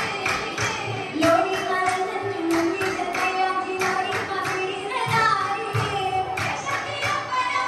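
Girls' voices singing a Mappila song for an Oppana dance through a stage microphone, with a steady rhythm of hand claps from the dancers, about three a second.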